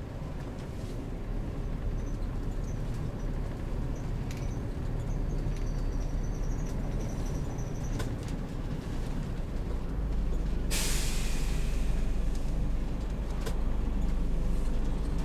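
Heavy camping-car's engine running steadily while driving, its low rumble growing louder about two-thirds of the way in. Just after, a sudden hiss lasts about a second.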